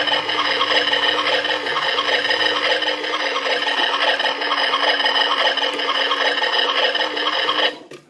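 Toy washing machine's small battery-powered motor running, turning the plastic drum with doll clothes inside: a steady hum with a fast rattle that cuts off suddenly near the end.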